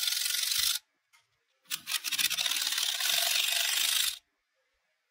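A tool scraping steadily against a metal gearbox part: a short spell, a pause, then a longer spell that stops abruptly.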